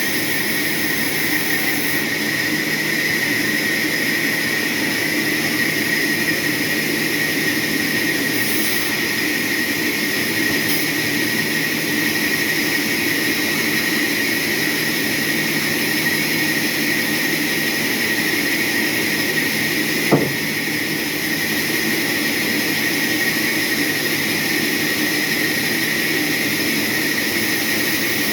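Sawmill saw machinery running steadily, an even noisy whine with a constant high tone, and a single sharp click about twenty seconds in.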